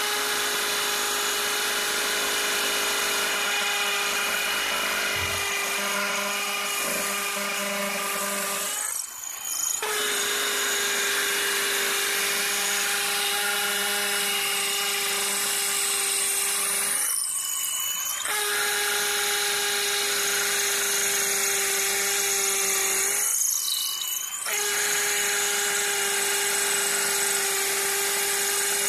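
RTRMAX RTX2014 18 V cordless brushless hammer drill boring into a concrete wall with a masonry bit in hammer mode: a steady high motor whine over a rattling hammer action. It eases off briefly three times.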